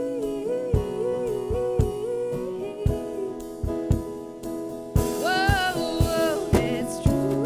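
Music: a repeating melodic figure over a steady beat of about two strokes a second, with a voice singing a bending line about five seconds in.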